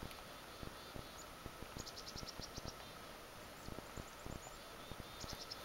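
Small birds chirping: short, high chirps in quick runs, a cluster about two seconds in and another near the end, over scattered soft low bumps.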